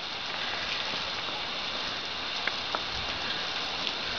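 A jet of water spraying in an arc and pattering onto a grass lawn: a steady hiss with a couple of faint ticks about two and a half seconds in.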